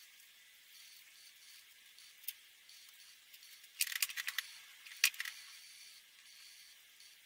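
Felt-tip alcohol markers (Winsor & Newton Promarkers) scratching faintly on paper, with a quick cluster of small plastic clicks about four seconds in and one sharper click a second later, as marker caps are pulled off and snapped on to change colour.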